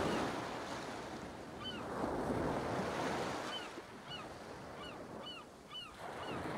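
Ocean surf washing onto a shore in slow swells, with a bird giving short chirps several times over it.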